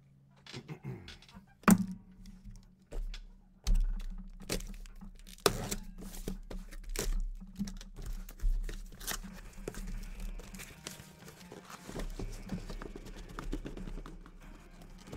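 A cardboard shipping case being torn open and the trading-card hobby boxes inside pulled out and stacked: tearing and scraping of cardboard with a string of sharp knocks and thuds as boxes are set down, the loudest knock about two seconds in.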